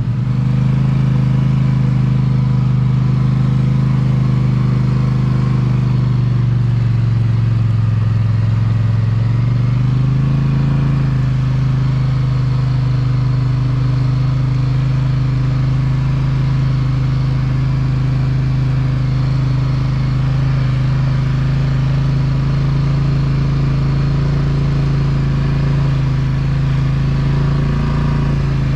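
Polaris Sportsman 850 ATV's twin-cylinder engine running steadily under way. Its pitch drops for a few seconds about a quarter of the way in, then rises back and holds steady.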